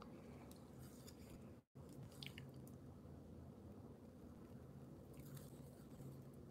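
Near silence: low room tone with a few faint small clicks, cutting out completely for a split second early on.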